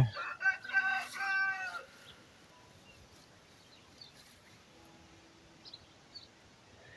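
A short run of high, pitched animal calls in the first two seconds, then a quiet outdoor background with a few faint high chirps.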